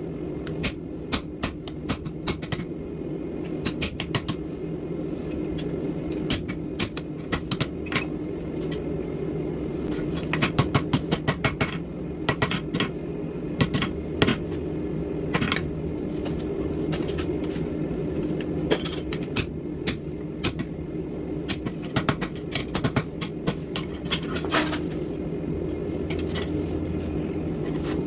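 Hammer striking steel being forged on an anvil, in irregular runs of quick sharp blows, over a steady low hum.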